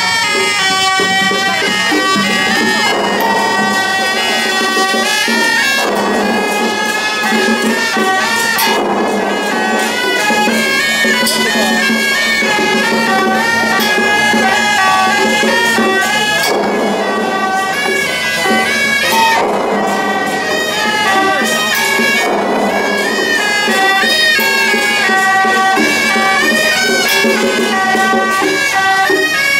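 Suona, the Chinese double-reed horns of a temple procession band, playing a loud, continuous, reedy melody.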